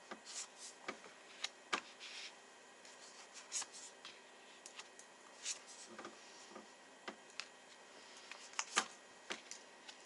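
Tarot cards being shuffled and handled: scattered soft flicks, slides and taps.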